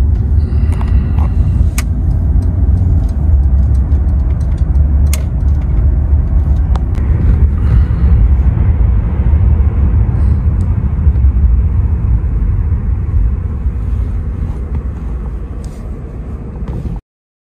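A car driving on a city road, heard from inside the cabin: a steady low rumble of road and engine noise with a few faint clicks. It eases slightly near the end and cuts off suddenly just before the end.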